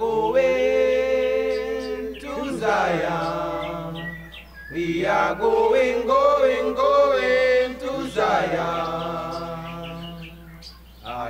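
Chanting voices singing long, drawn-out notes with a wavering pitch, in four held phrases of two to three seconds each.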